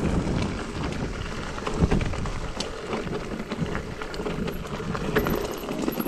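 Mountain bike riding over a rough trail: a continuous rumble of tyres on stones and dirt with frequent sharp knocks and rattles, and wind on the microphone.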